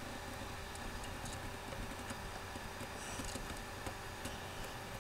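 Faint, irregular small clicks over a steady low hum and hiss.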